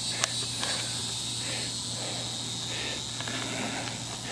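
Insects singing outdoors, a steady high-pitched chorus.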